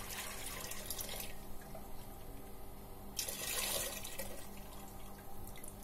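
Pickling brine being poured off from jars of cucumbers through a perforated draining lid, heard as two short pours of splashing liquid, each about a second long, the second about three seconds in, over a faint steady hum.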